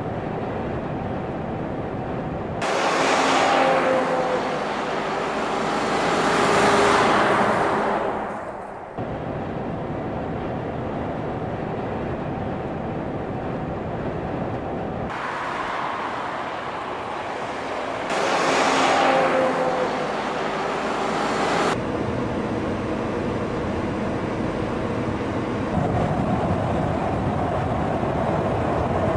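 Road noise of trucks on a highway, with two loud pass-bys a few seconds each in which the engine and tyre sound swells and drops in pitch as the vehicle goes by. The steady road noise shifts abruptly in between.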